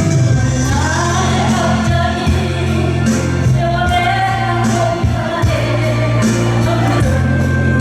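A singer performing a Korean trot song live, the voice carrying a melody over instrumental accompaniment with a steady bass.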